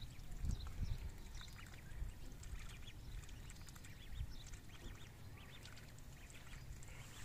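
Several ducklings peeping, many short high chirps overlapping one another, with a few low thumps in the first second.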